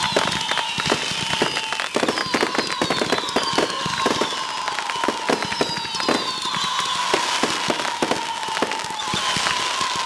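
Fireworks going off: dense crackling pops, with repeated whistles that glide down in pitch every couple of seconds over a steady high whistle.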